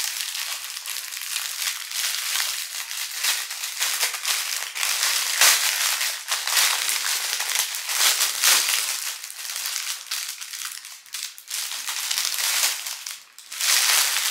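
Bags and packaging rustling and crinkling as items are packed by hand, continuous with a brief lull near the end.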